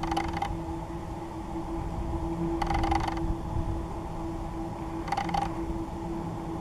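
Camera lens motor whirring in three short bursts, as the zoom or focus adjusts while following a flying bird, over a steady low hum.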